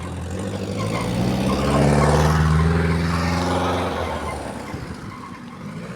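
A bus driving past: its engine drone and tyre noise swell to a peak about two seconds in, then fade away.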